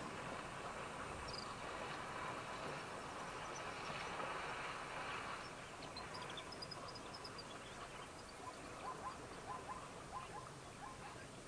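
Water splashing and sloshing as elephants wade through a waterhole, fading after about five seconds. Small birds then chirp in quick, short, high notes to the end.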